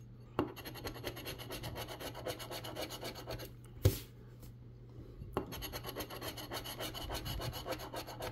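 A large metal coin scraping the coating off a paper scratch-off lottery ticket in quick, rapid strokes. The scratching stops for about a second and a half in the middle, where there is one sharp click, then starts again.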